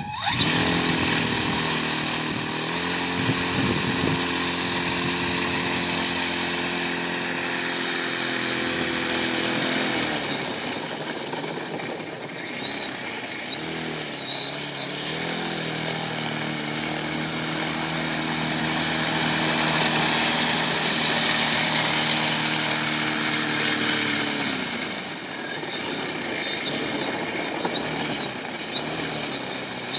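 Homemade propeller-driven aerosled running across ice: the propeller and motor start at once and run at high speed as a steady drone with a whine on top. They ease off about a third of the way in, pick up again around the middle, and ease off once more near the end.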